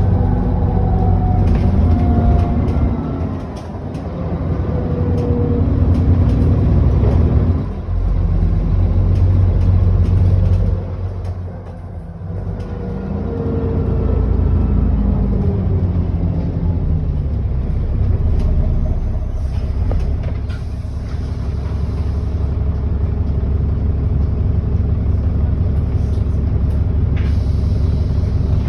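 ADL Enviro400 double-decker bus's diesel engine pulling through the gears with a thin whine over it. The engine note climbs and drops back three times in the first half, then settles to steady running. A few short clicks come near the end.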